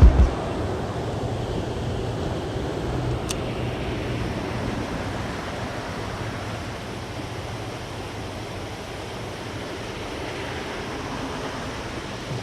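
Steady rushing noise of flowing creek water, slowly easing in level, with a faint tick about three seconds in.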